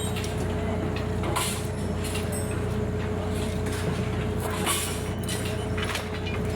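Heavy machinery running steadily, with a low rumble and a constant hum, plus scattered metal knocks and rattles.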